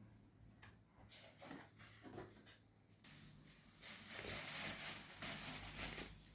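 Faint handling noises with a stretch of rustling from about four seconds in to near the end, typical of packaging being handled.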